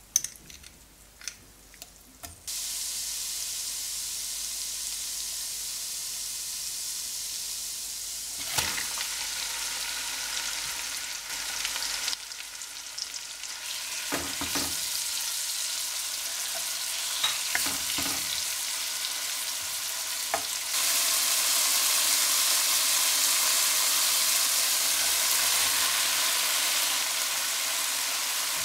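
Crushed garlic and diced chicken breast sizzling in melted butter in a pot, with occasional knocks and scrapes of stirring. The sizzling starts suddenly about two and a half seconds in and steps up louder about two-thirds of the way through.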